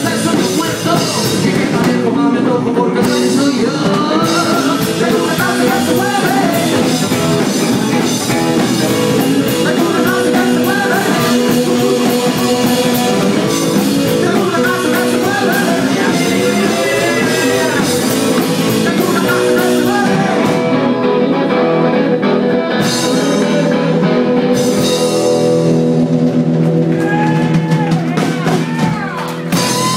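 Live rockabilly band playing: upright bass, hollow-body electric guitar and drum kit, with a man singing.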